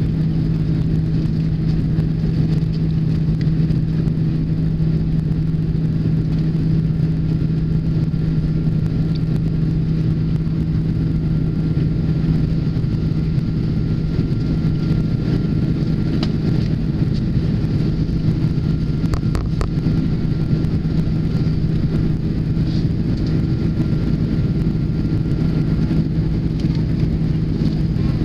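Jet airliner engines heard from inside the passenger cabin during the climb after takeoff: a loud, steady drone with a strong low hum under a broad rush of air.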